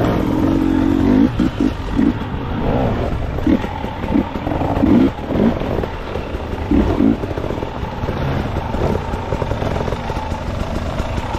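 Dirt bike engine running at low trail speed, with repeated short surges of throttle.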